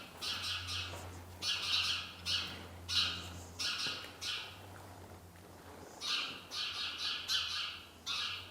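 Small birds giving harsh, scolding alarm calls in quick repeated bursts, angry at an intruder in their nesting barn. The calls come in two runs with a lull of about a second and a half in the middle, over a faint low steady hum.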